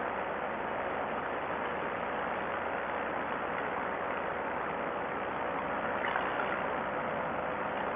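Steady rush of air with a faint, even drone from a two-stroke paramotor in flight.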